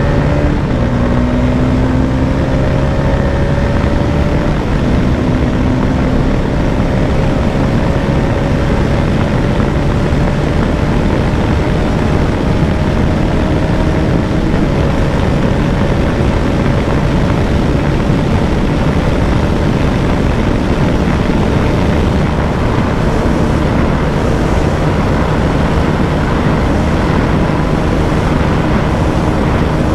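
Bajaj Dominar 250's single-cylinder engine pulling hard in fifth gear at high speed, its note climbing slowly over the first half and then holding steady near top speed, under a heavy, constant rush of wind.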